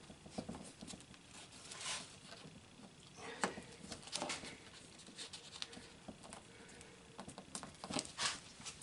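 Scattered small rustles, scratches and light clicks of close-up handwork, consistent with hand stitching: needle and thread pulled through material and the work handled on the bench.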